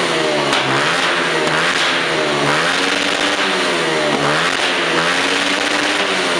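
Rieju Marathon 125 single-cylinder four-stroke engine breathing through a Scalvini racing exhaust, revved over and over so its pitch rises and falls several times.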